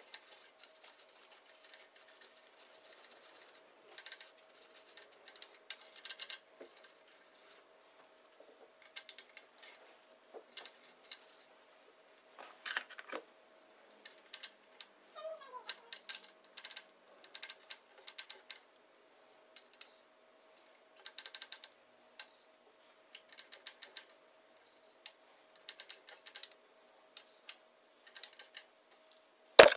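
Scattered small scratching, rubbing and tapping as a cotton swab is worked around the metal bobbin area and feed dogs of a Singer 401 sewing machine, over a faint steady hum. A sharp click comes right at the end.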